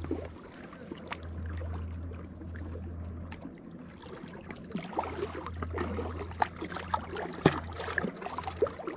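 Shallow lake water lapping and splashing in small irregular bursts around a landing net held in the water at a rocky shore, over a low rumble that comes and goes.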